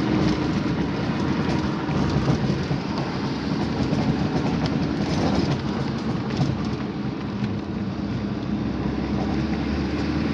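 Steady engine and road noise heard from inside a moving vehicle's cabin.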